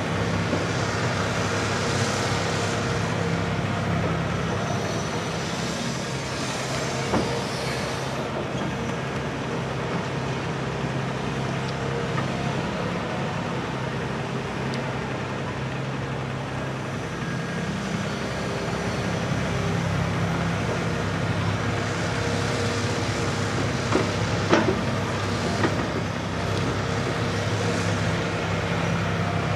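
Diesel engines of a hydraulic excavator and farm tractors running steadily at a loading site, with a few short knocks now and then.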